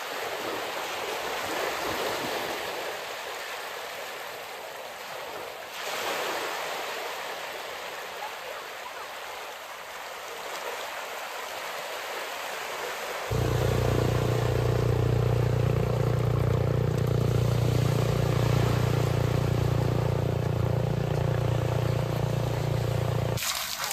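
Steady rain falling, an even hiss. About halfway through, a loud, steady low hum starts abruptly over the rain and cuts off suddenly near the end.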